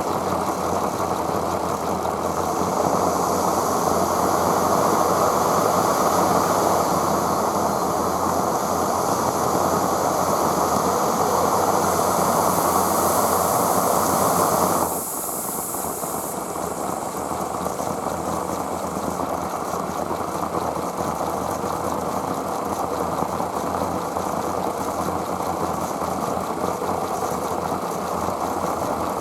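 Aster West Country Gauge 1 live steam locomotive in steam: a steady rushing hiss from its burner and steam. It drops in level about halfway through and then carries on steadily.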